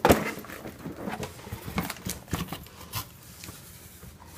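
Dog rummaging in a cardboard box: irregular rustling, scratching and knocking as it noses and paws through the contents, with a sharp knock about the start.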